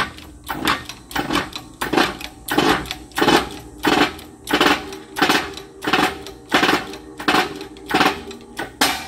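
Hydraulic shop press being hand-pumped, a sharp clack with each stroke of the handle about every two-thirds of a second, as the ram presses a tapered roller carrier bearing onto a differential spool.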